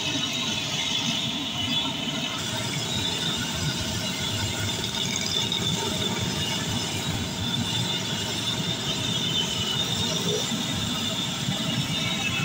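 Jalebi deep-frying in a karahi of hot oil: a steady, dense sizzle with fine crackling.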